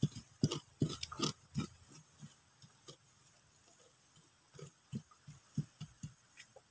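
Wooden pestle pounding red chilies in a coconut-shell bowl: a quick run of dull thuds in the first two seconds, a few scattered strokes, then another run of thuds near the end.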